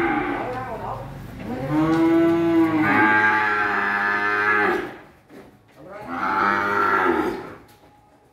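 Cattle mooing: the tail of one call about a second in, a long moo through the middle, and a shorter one near the end.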